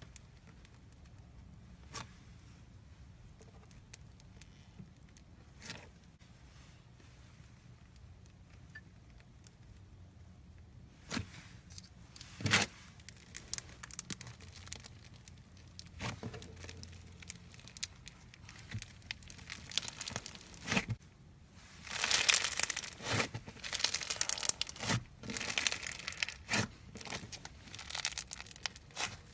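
Slime being stretched and pressed by hand. Scattered sticky pops and clicks give way, about three quarters of the way through, to dense continuous crackling.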